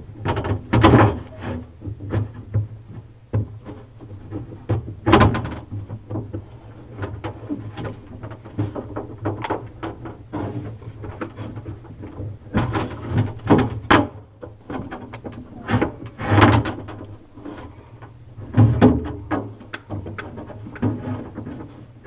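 Irregular plastic clicks, knocks and scraping as a GE refrigerator's replacement evaporator fan motor and its wiring quick-connect plug are worked by hand into a tight plastic mount, over a steady low hum.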